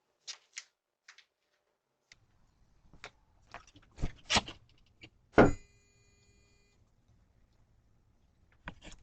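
A run of clicks and knocks, then a loud clang about five and a half seconds in that rings with a metallic tone for over a second.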